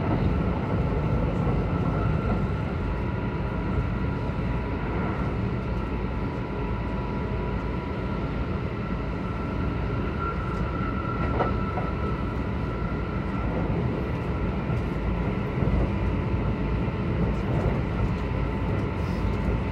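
Kintetsu 22000 series electric train running at a steady speed, heard from inside the passenger car: a continuous rumble of wheels on rail with a faint steady high tone over it. A single short knock comes about eleven seconds in.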